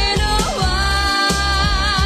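Pop song playing over a steady beat, with a singer holding one long wavering note from about half a second in.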